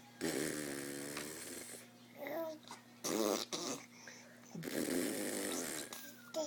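Raspy, snore-like vocal noises in three bursts: a long one at the start, a short one about three seconds in and a longer one near the end. A brief vowel-like sound comes between the first two.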